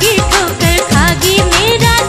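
Rajasthani folk-pop song with a quick, steady drum beat of falling low notes, about four a second, under a bending melodic line.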